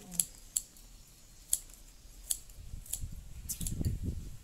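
Scissors snipping through thin plastic wrappers, about six sharp separate snips a second or so apart. A low rumble rises under the last snips near the end.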